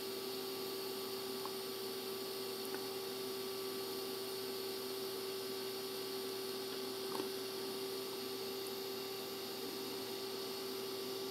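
DC TIG welding arc on titanium and stainless steel: a steady hiss with a constant hum, and a few faint crackles.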